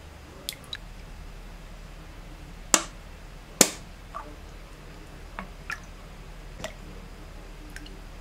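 Scattered light clicks and taps of a bottle and a ceramic mug being handled while a drink is poured into the mug, with two sharper knocks about a third of the way in.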